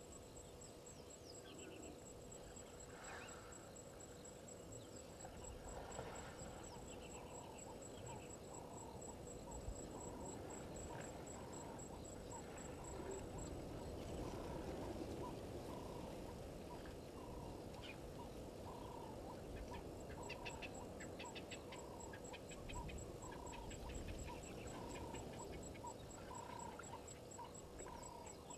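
Faint waterhole ambience: a steady high insect trill that drops out for a few seconds in the middle, and from about ten seconds in a short call repeating about every two-thirds of a second. Scattered higher bird chirps come over the top.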